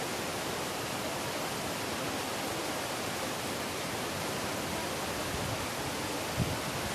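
Waterfall rushing as a steady, even wash of falling water. A brief low thump near the end.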